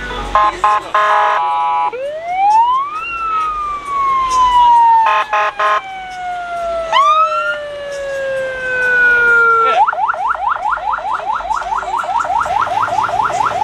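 Loud electronic siren tones cycling through patterns. First come short beeps, then a quick rise and a long slow falling wail, three more beeps and another rising whoop. About ten seconds in it switches to a fast repeating yelp of roughly eight chirps a second.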